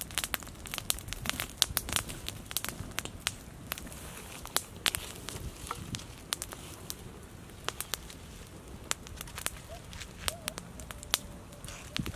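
Open wood fire of twigs and sticks crackling, with frequent irregular sharp pops.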